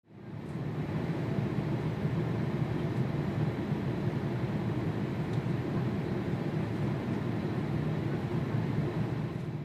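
Steady low rumble of jet airliner engines, fading in over the first second and cutting off at the end.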